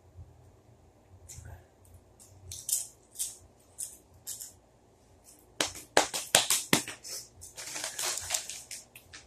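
Crunchy ghost pepper chips being bitten and chewed close to the microphone: scattered crackles, then a run of loud crunches about halfway through and a denser spell of crackling near the end.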